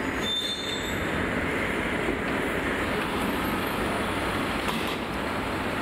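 Steady running noise of a Shanghai Metro Line 2 train standing at the platform with its doors open, with a faint brief high tone near the start.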